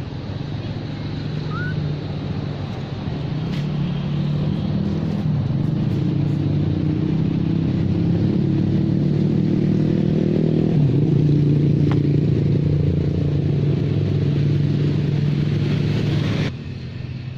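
An engine running steadily and slowly getting louder, with a brief dip in pitch about two-thirds of the way through, then cutting off suddenly near the end.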